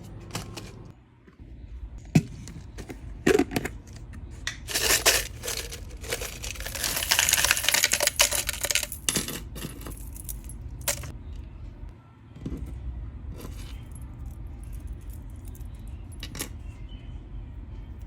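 Handling noise from small hard objects: scattered clicks and rattles, with a denser spell of clicking and rustling about six to ten seconds in.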